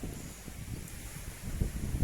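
Wind buffeting the microphone: a gusty, fluttering low rumble that grows stronger about three-quarters of the way through.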